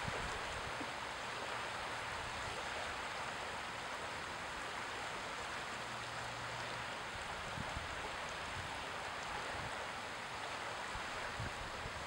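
Small waves lapping and washing in over a shallow shore: a steady, even wash of water.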